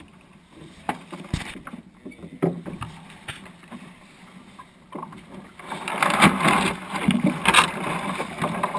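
Knocks, clunks and clicks of gear and wooden hull in a small wooden sailing dinghy being handled, picked up by a camera fixed to the boat. Partway through, a louder rough rushing and scraping noise, mixed with more knocks, lasts for a couple of seconds before easing off.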